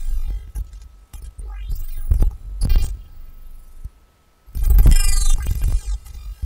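Experimental electronic sound generated live by a fractal-based (Mandelbox) algorithm, played over loudspeakers: a deep rumble under gliding tones and sharp clicks. It cuts out briefly about four seconds in, then comes back as a loud, dense burst.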